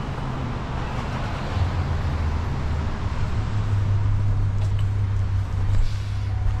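City street traffic on wet pavement: tyres hiss past and fade, and a low, steady engine hum comes in about a second and a half in and holds.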